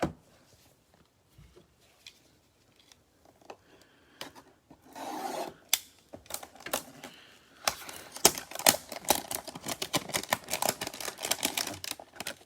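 A cardboard trading-card hanger box and its plastic wrapping being opened and torn by hand: a few scattered clicks, a short scrape about five seconds in, then a run of rapid crackling clicks through the second half.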